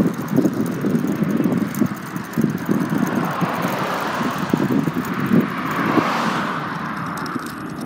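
Wind rumbling and buffeting on a phone microphone carried on a moving bicycle, with a car passing close by, its road noise swelling about five to six seconds in and then falling away.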